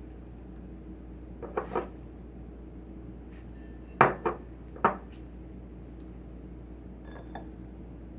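Tableware knocking and clinking on a table: two light clinks about a second and a half in, then three sharper knocks about four to five seconds in.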